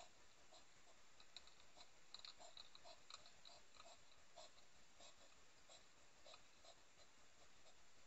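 Hedgehog eating dry food from a bowl: faint, regular chewing clicks, about two to three a second.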